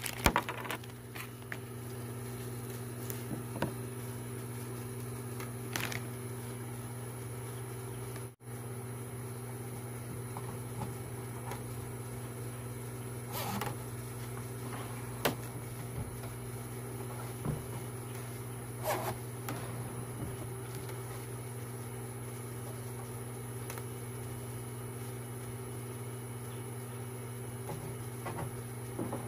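A steady low mechanical hum runs throughout, with a few scattered light knocks and rattles as a radiator and its plastic fan shrouds are handled.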